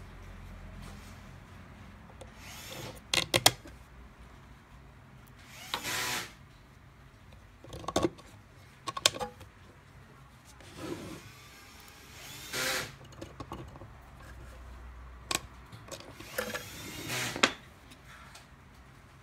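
A small power screwdriver run in several short bursts of about half a second to a second each, mixed with sharp clicks and knocks of small parts being handled.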